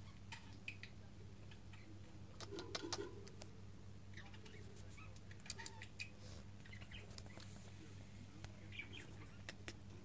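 A 15-day-old budgerigar chick giving faint, short cheeps, with light scratching and clicking as it moves on wood shavings, loudest about two and a half to three seconds in. A steady low hum runs underneath.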